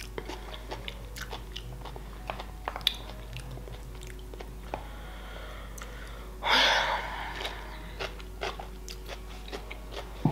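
Close-miked mouth sounds of someone chewing sushi: small wet smacks and clicks of chewing throughout, with one short, louder rustling burst about six and a half seconds in.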